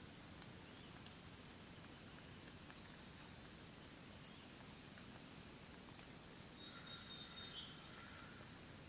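Steady, high-pitched insect chorus: one unbroken shrill tone.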